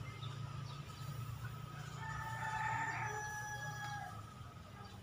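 A rooster crowing once, a long held call starting about two seconds in, over a steady low hum.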